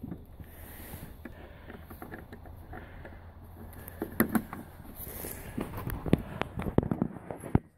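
Small clicks and rustles as the ignition key is fitted into the key switch of a John Deere X155R ride-on mower, more of them in the second half, over a faint low steady hum.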